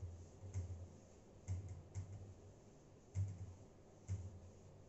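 Whiteboard being wiped clean with a cloth duster: an uneven run of short rubbing strokes and soft knocks, about one to two a second.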